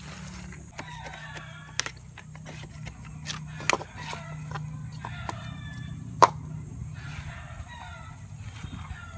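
A rooster crowing three times, with sharp knocks of a knife blade against coconut shell in between; the loudest knock comes about six seconds in.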